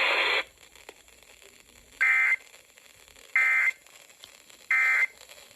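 Emergency Alert System end-of-message over radio: three short, identical buzzing bursts of SAME digital data tones, about a second and a third apart, marking the end of the alert. A loud hiss-like noise cuts off about half a second in, before the bursts.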